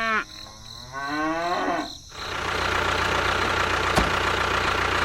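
Cattle mooing: the end of one moo, then a second long moo that rises in pitch. After that comes a steady mechanical hum with one sharp click about four seconds in.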